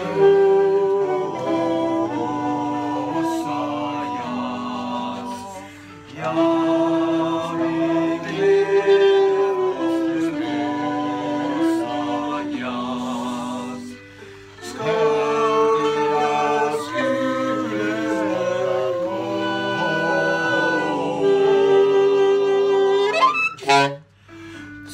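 Small group of voices singing a slow tune together with a saxophone, in long held notes, in phrases broken by short pauses about every eight seconds.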